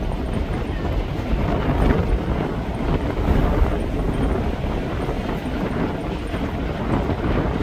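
Train rolling by with a steady low rumble, mixed with wind buffeting the microphone.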